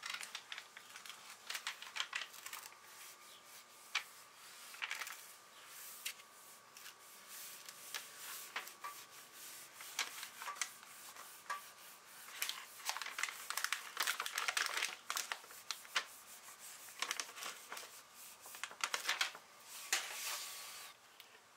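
Crackling, rustling and scratching of a thin sheet of pressure-sensitive wood veneer as hands handle it and rub it down onto a wooden cabinet panel, coming in uneven bouts.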